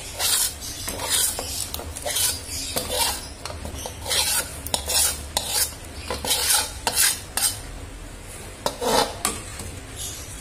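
Metal utensil scraping fried spice paste out of a wok into a pot of boiling broth: a run of short rasping scrapes of metal on metal, one or two a second, with a brief lull about eight seconds in.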